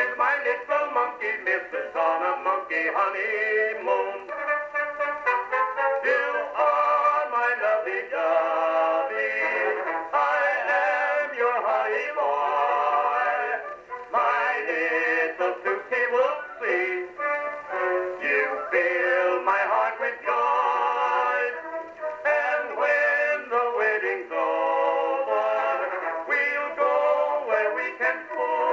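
An Edison cylinder phonograph plays a 1909 Albany Indestructible cylinder of a comic vaudeville duet with band accompaniment. The music is continuous and thin, with no bass, and brass is prominent.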